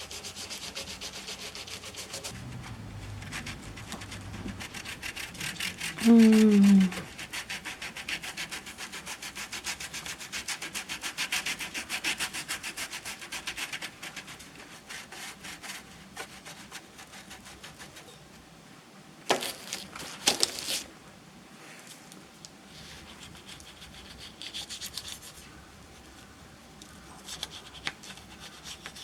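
Brisk scrubbing of greasy range hood parts, fast back-and-forth strokes. A short loud falling squeal comes about six seconds in, and a few sharp clatters follow about two-thirds of the way through.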